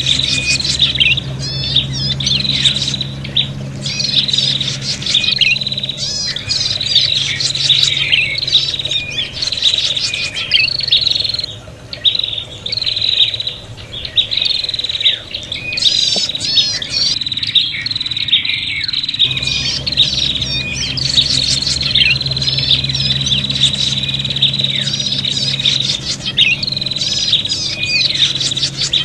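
Prinias (prenjak) calling in a rapid, agitated run of chirps and trills, the noisy fighting calls used as a lure to draw other prinias. A low hum sits beneath parts of it.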